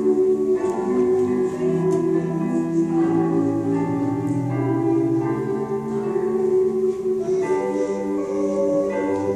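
Slow live instrumental music: sustained notes and chords that change every second or two.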